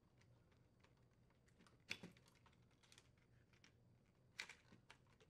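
Faint plastic clicks and small rattles of wire harness connectors being worked loose from a refrigerator dispenser's display control board, with a couple of sharper clicks about two seconds in and again near the end.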